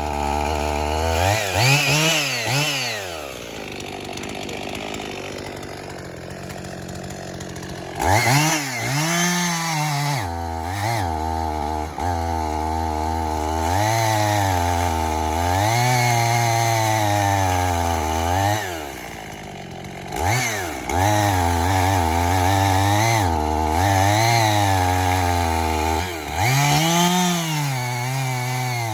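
Two-stroke chainsaw engine revved up and down repeatedly, dropping back to a lower, quieter idle for several seconds twice. The owner judges the saw to be running too lean at the top end.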